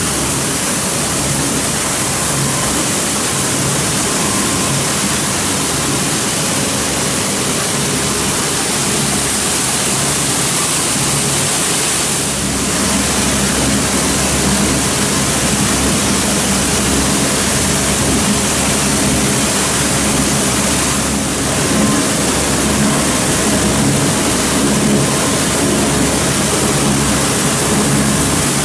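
Steady machinery noise of a running plastic film recycling and extrusion line, with electric motors and conveying equipment humming under a broad rushing noise. It gets a little louder about twelve seconds in.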